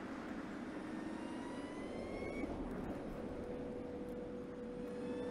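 Audi Q4 Sportback e-tron electric SUV driving, with tyre and road noise under a rising electric-drive whine that stops about two and a half seconds in, followed by a steady whine.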